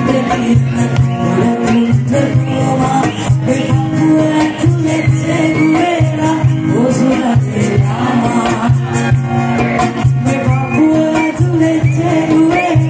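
Live band music with a lead singer's vocal over a steady low beat.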